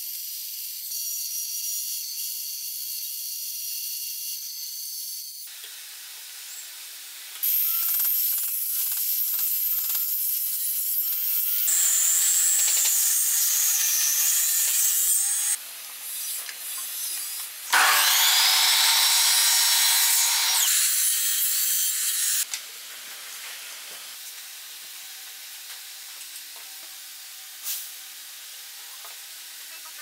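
Power saws cutting wood in turns: a band saw slicing a curved wooden blank, then louder saw runs, the loudest a miter saw cut with a whine that dips and rises.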